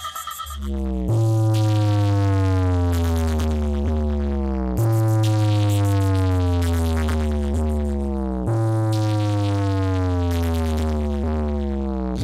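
Electronic DJ sound-check track with heavy, deep bass notes that each glide slowly downward in pitch. A new note strikes about every three and a half seconds, after a brief lull at the start.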